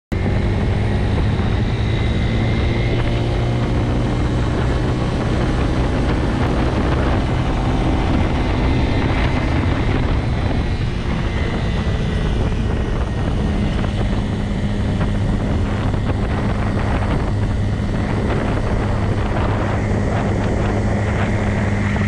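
Motorcycle engine running at a steady cruising speed, heard from the rider's seat, under a constant rush of wind and road noise.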